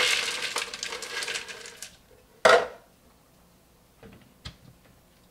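Brown sugar being spooned and scraped from a small bowl into a glass blender jar, a gritty rattling hiss for about two seconds. Then a single sharp knock about two and a half seconds in, the loudest sound, as something is set down, followed by a few faint ticks.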